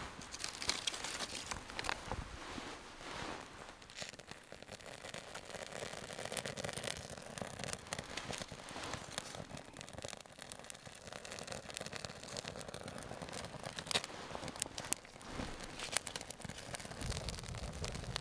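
Campfire of dry twig kindling catching, crackling and snapping with many sharp pops. A low rushing sound builds near the end as the flames grow tall.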